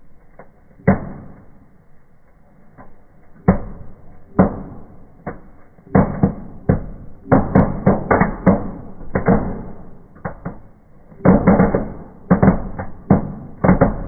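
Fireworks fountain and sparklers burning in a fireplace, giving off sharp cracks and pops, a few at first, then rapid crackling runs from about six seconds in.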